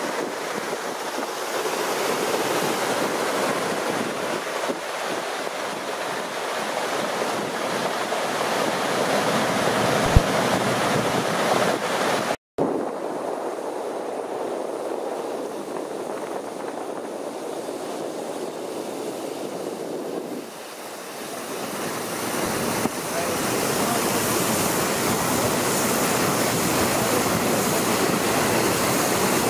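Steady rush of wind on the microphone and water churning along a moving boat on the lake, with no distinct engine tone. The sound cuts out briefly about twelve seconds in, and grows fuller and louder in the last third.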